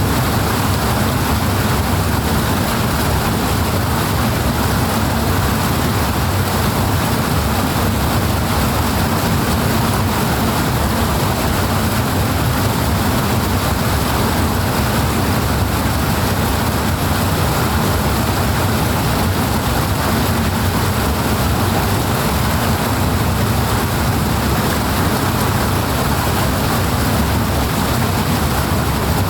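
Rushing water, a steady, unbroken roar with a strong low rumble.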